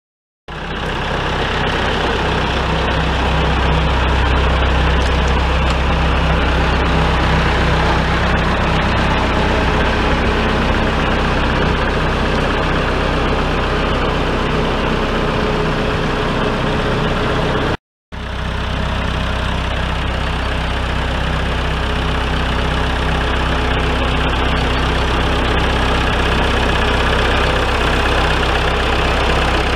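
Massey Ferguson 165 tractor engine running steadily with a low, even drone. It drops out for a split second just past halfway, then carries on unchanged.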